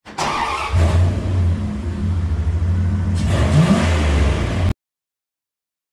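A car engine running at a steady low pitch, then revving up briefly about three and a half seconds in; the sound cuts off suddenly near the end.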